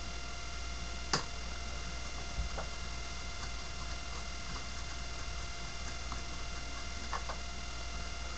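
A few light clicks and taps from a paintbrush and a small model building being handled while dry brushing, over a steady electrical hum and hiss. The sharpest click comes about a second in, with fainter ones near two and a half seconds and about seven seconds in.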